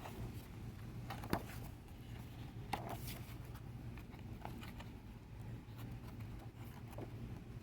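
Photobook pages being turned and handled: a few brief paper swishes and light taps, unevenly spaced, over a low steady hum.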